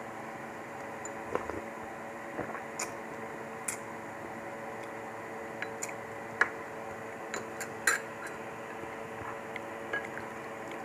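Eating noodle soup with a fork and spoon: scattered sharp clicks and soft wet mouth sounds, the loudest about two-thirds of the way through, over a steady background hum.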